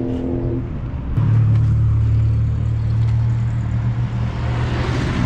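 Renault 4's small four-cylinder engine idling steadily with the bonnet open; its even hum comes up strongly about a second in.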